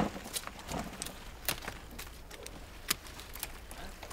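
Pruning shears snipping grape stems during hand harvest: a few sharp clicks, the two loudest about a second and a half in and near the three-second mark, with lighter ticks and the rustle of vine leaves and grape bunches being handled between them.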